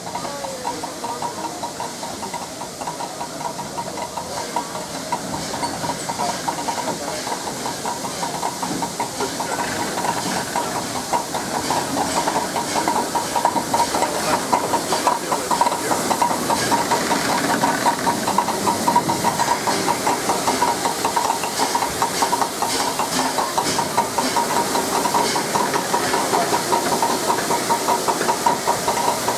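LNER A4 class steam locomotive No. 4464 'Bittern' moving slowly tender-first, with steady hissing steam and its engine running, growing louder as it draws near.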